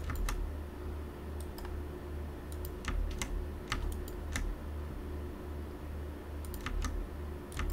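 Computer keyboard keys being pressed in scattered small clusters of clicks: someone trying keys, such as the Ctrl keys, to release the mouse from a virtual machine. A steady low hum runs underneath.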